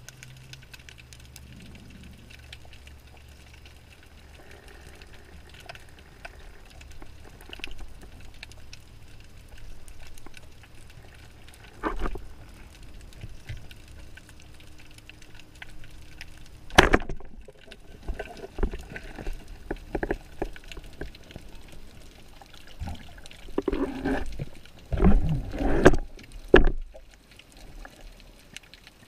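Underwater sound picked up by a diving camera: a low steady hum with faint crackling and a few sharp knocks. Near the end comes a run of louder splashing and gurgling as the diver reaches the surface.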